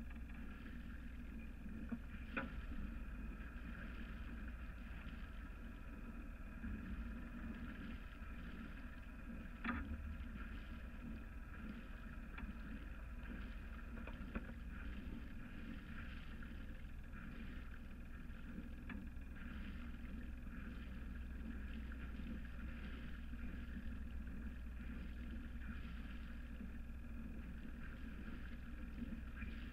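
A sailing yacht's inboard diesel engine running steadily at low speed. There are a few light knocks.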